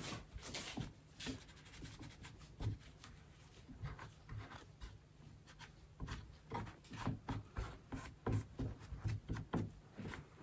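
Gold leaf on a carved ribbon ornament being rubbed down by hand with a soft wad, burnishing the dried leaf and showing up gaps: faint, irregular scratchy rubbing strokes with light knocks against the frame, busier in the second half.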